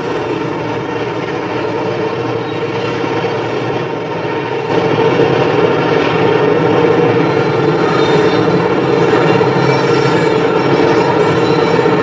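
Freight train hauled by diesel locomotives crossing a steel truss bridge: a steady rumbling drone that gets louder about five seconds in and then holds.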